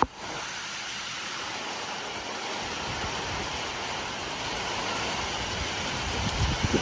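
Severe thunderstorm wind rushing steadily, with a sharp click at the very start and low buffeting on the microphone near the end.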